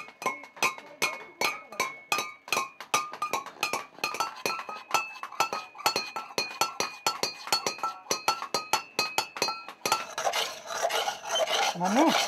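Hand hammer beating a brass bowl on a stone anvil: quick, even metallic strikes about four a second, each one ringing. About ten seconds in, the hammering stops and gives way to a rough scraping of metal.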